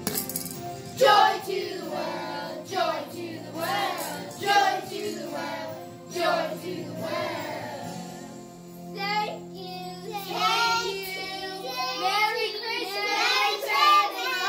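A group of children singing a Christmas carol together over backing music, the voices fuller and louder in the last few seconds.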